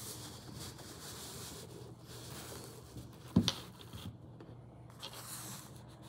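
Soft rustling and scraping handling noise, with one sharp click about three and a half seconds in, the loudest sound, and a couple of fainter clicks after it.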